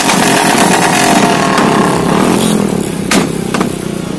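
Royal Enfield single-cylinder motorcycle with an aftermarket exhaust running loudly with the throttle blipped, easing off after about two and a half seconds. Two sharp cracks about half a second apart follow near the end.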